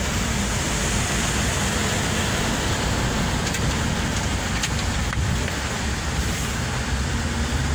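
Car driving slowly, heard from inside the cabin: a steady low rumble of engine and tyres, with a few faint clicks near the middle.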